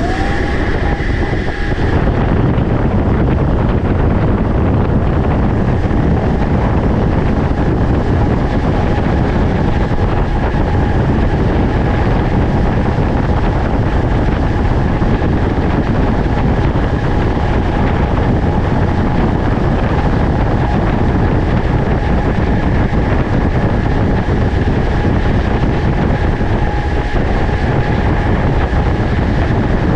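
A machine running steadily: a loud low rumble with a steady whine on top.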